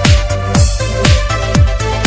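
Electronic dance music with a steady four-on-the-floor kick drum, about two beats a second, under sustained synth notes.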